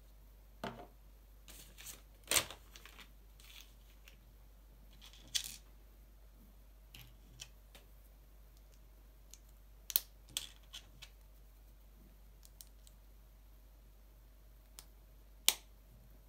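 Small plastic LEGO bricks clicking and tapping as they are pressed together and handled on a tabletop: scattered sharp clicks at an irregular pace, the loudest about two, five, ten and fifteen seconds in.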